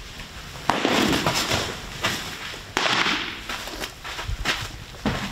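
A baseball smacking into a leather glove twice, about two seconds apart, each sharp pop followed by a trailing rush of echo or noise, with a few lighter knocks near the end.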